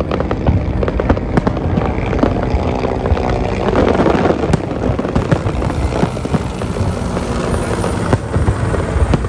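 Fireworks display: aerial shells popping and crackling in quick succession, over a steady low rumble.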